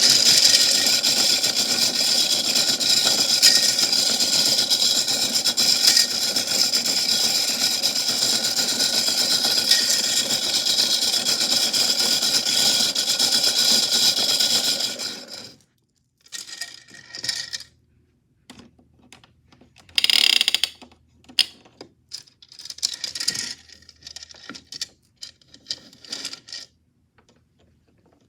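Toy washing machine running with metal chains tumbling in its drum: a steady motor whine under dense metallic rattling, which cuts off about halfway through. After that come short, scattered bursts of chain clinking and rattling.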